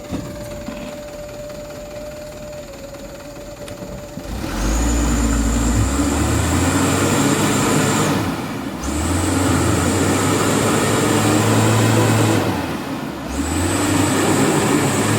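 Mitsubishi Canter HD 125PS diesel truck engine idling, then revved hard about four and a half seconds in while pulling a heavy 7-ton load through mud. The throttle eases off briefly twice, near the middle and near the end, and a thin high whine rides over the engine while under throttle.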